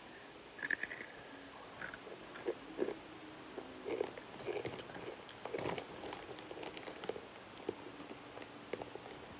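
A child biting into a Takis rolled tortilla chip with a sharp crunch a little over half a second in, then chewing it with irregular crunching.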